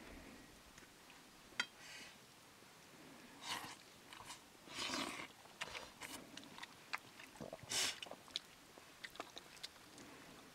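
Faint chewing and mouth sounds of a man eating maize-flour food and cooked greens by hand, with many small clicks and three short, louder hissing breaths.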